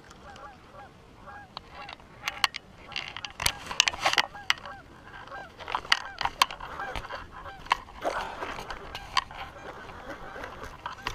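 A string of short rising-and-falling calls from waterfowl, repeating throughout. Over them are sharp clicks and knocks from a fishing reel and gear being handled close by, louder than the calls.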